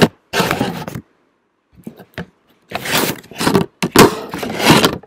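Stiff wood-look pressed-board panels of a flat-pack monitor stand being handled, sliding and scraping against each other in several short bursts of rustling noise, the loudest near the end.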